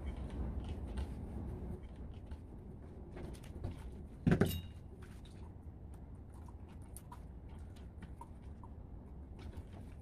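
Faint clicks and small scrapes of a screwdriver and wires being handled at a plastic electrical box, with one louder knock about four seconds in, over a low steady hum.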